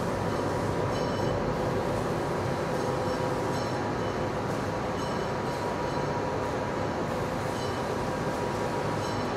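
Steady machinery din of a turbine factory hall, with a constant hum and short high-pitched chirps every second or two.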